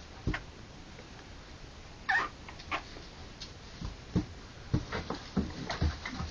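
Three-week-old harlequin poodle puppy giving one short high squeal about two seconds in, among a scatter of soft knocks and taps.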